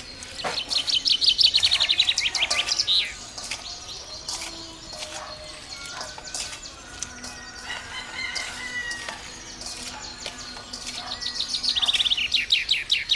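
Snail shells clicking and clattering as hands rub and wash them in a metal basin. A bird's rapid trill of notes falls in pitch near the start and again near the end, and a longer bird call comes in the middle.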